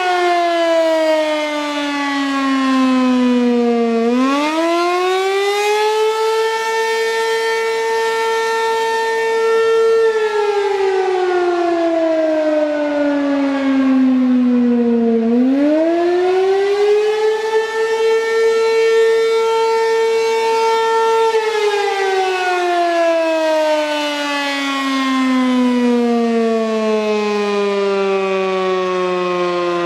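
American Signal RM-127 rotating mechanical siren sounding the wavering attack signal, loud. Its pitch falls, swoops back up and holds for about four seconds, twice in a cycle of about eleven seconds. On the last long, slow fall the pitch sinks lower than before.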